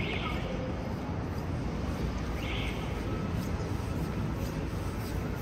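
Street ambience in Manhattan: a steady low rumble of city traffic, with two short high-pitched sounds, one at the start and another about two and a half seconds later.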